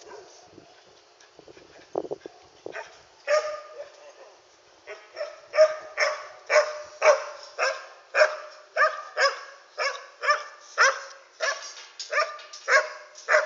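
A dog barking over and over: a few scattered barks at first, then a steady run of about two barks a second from about five seconds in.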